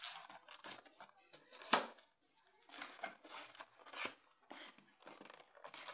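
Cardboard retail box being handled and pried open by hand: scattered scrapes and rustles of paperboard flaps, with one sharp snap nearly two seconds in.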